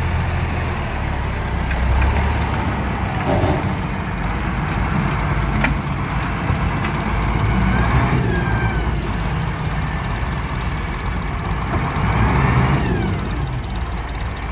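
An engine running steadily at a low rumble, with a few scattered clicks and knocks over it.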